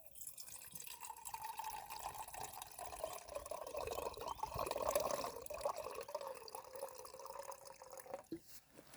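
Water being poured into a container, a steady splashing pour with a ringing tone from the vessel, lasting about eight seconds and stopping abruptly near the end.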